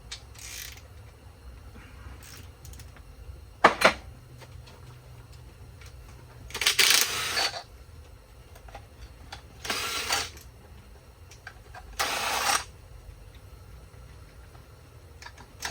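Short bursts of a power wrench spinning engine mount bolts loose, four bursts about three seconds apart. A sharp metallic clank sounds a little before the first burst.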